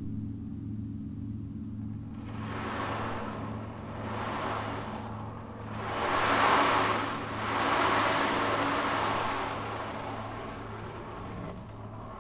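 Ocean drum: beads rolled across the drum head in a series of surf-like swells that build from about two seconds in, are loudest in the middle, and die away near the end. Under them a gong rings on as a steady low hum.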